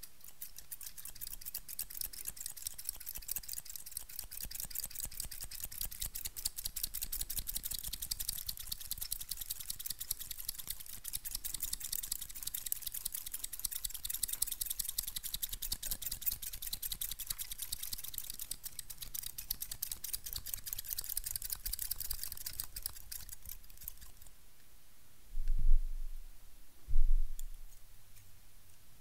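Barber scissors snipped open and shut very rapidly, right at the microphone, in one long unbroken run of snips that stops about 24 seconds in. Two dull, louder thumps follow near the end.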